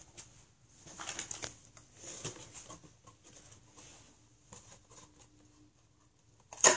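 Rustling and light knocks from a toddler grabbing and handling a Kinder Surprise packet, mixed with close handling noise. A short, much louder burst of noise comes at the very end.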